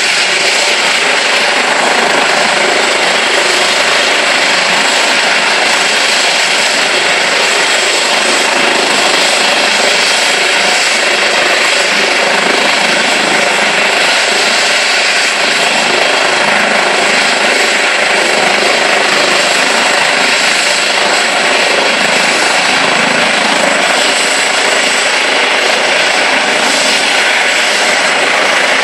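Helicopter running on the helipad before take-off, its turbine engines and turning rotors making a loud, steady noise with a constant high whine.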